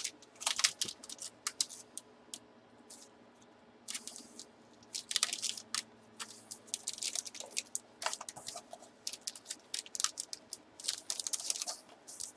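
Plastic packaging rustling and crinkling in clusters of sharp little clicks as a collectible is handled and bagged, with a quieter pause of about two seconds early on.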